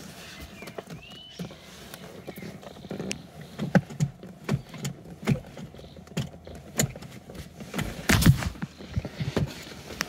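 Scattered clicks, knocks and rustles of a car seatbelt and its metal buckle being handled and plugged in next to a child car seat, with the loudest knock about eight seconds in.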